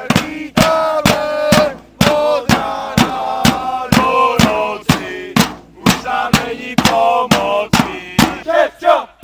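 A group of football supporters chanting in unison over makeshift drums, a plastic barrel and a small snare-type drum, beaten with sticks in a steady, fast beat.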